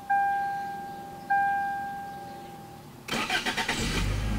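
The car's warning chime dings twice, about a second apart. About three seconds in, the starter cranks the 1996 Toyota Corolla's 1.6 L 4A-FE four-cylinder engine, which catches within a second and settles into a steady idle on a cold start.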